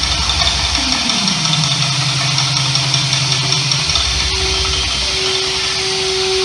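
Live experimental electronic noise music. A low pulsing hum sits under a tone that glides down about a second in and holds for a few seconds. A higher steady tone comes in about halfway through, all over a constant hiss.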